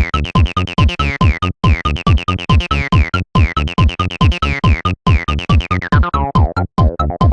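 Acidcore electronic music: a fast, even beat of synth hits, each sweeping down in pitch, broken by short silent gaps about every second and a half.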